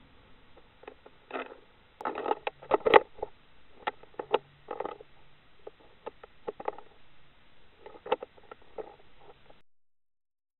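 Irregular knocks, clicks and scraping from an underwater camera in its housing as it is moved and dropped back down to the seabed, loudest about two to three seconds in. The sound cuts out entirely near the end.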